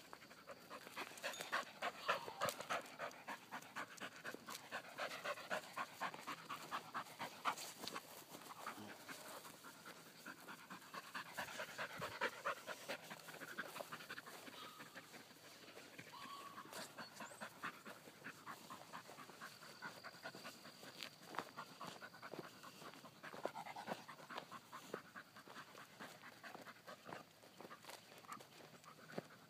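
A dog panting in quick, even breaths, fairly quiet, throughout.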